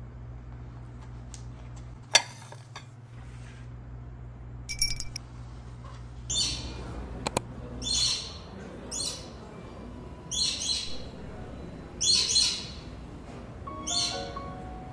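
Bird chirping: repeated short, high chirps, each a quick falling sweep, coming every one to two seconds from about five seconds in. Before them a low steady hum and one sharp click about two seconds in.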